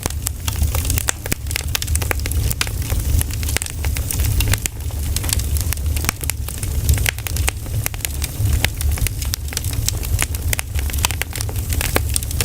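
Pine cones burning in a campfire, crackling and popping in quick irregular snaps over a steady low rumble.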